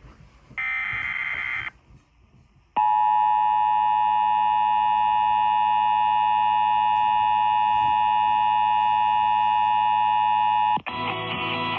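Emergency Alert System signal coming over the radio: the last SAME header burst, a raspy data burst about a second long, then after a short pause the steady two-tone EAS attention signal (853 and 960 Hz) sounding for about eight seconds. It cuts off abruptly near the end and radio programme music comes back.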